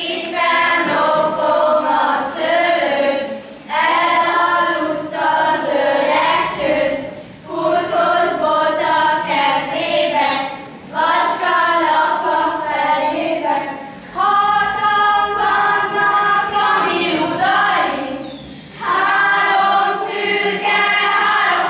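Children's choir singing in phrases of a few seconds, with short breaks for breath between them.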